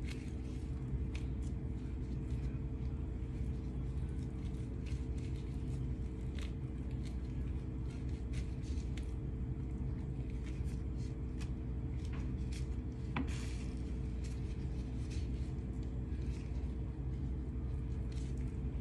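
A steady low hum throughout, with scattered light clicks and ticks as gloved hands trim raw chicken with a knife.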